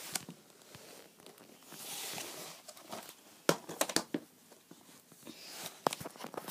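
Plastic DVD cases being handled on a tile floor: rustling, then a cluster of sharp plastic clicks about halfway through.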